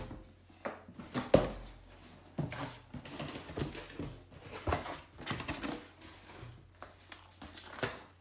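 Cardboard shipping box being handled and opened by hand: scattered rustles, scrapes and light knocks of the cardboard lid and flaps, the sharpest about a second in.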